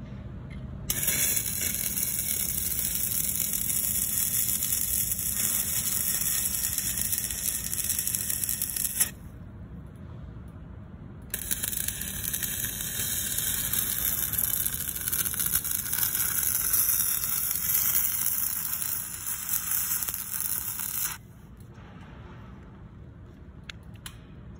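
Stick-welding arc crackling steadily as a 3/32-inch 6013 electrode burns at 90 amps. There are two welds, about eight and ten seconds long, with a short pause between them.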